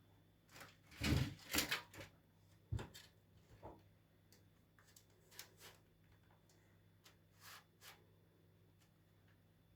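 Scattered clicks and knocks of computer parts being handled during assembly: a cluster of louder knocks in the first two seconds, a sharp tap just under a second later, then fainter occasional taps.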